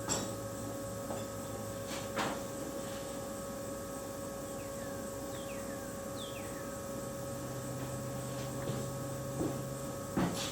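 Steady electrical hum with a few sharp clicks or knocks: one at the start, one about two seconds in, and one near the end.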